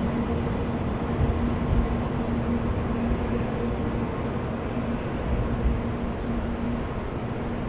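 A 700 series Shinkansen train pulling slowly out of the platform: a low, continuous rumble with a steady hum, easing off slightly as it draws away.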